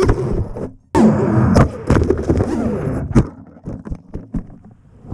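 FPV racing quadcopter's brushless motors (BrotherHobby R5 2450kv with Gemfan Flash 5149 props) whining and surging up and down in pitch as it flips, with several sharp knocks. A little past halfway it drops much quieter, leaving scattered clicks.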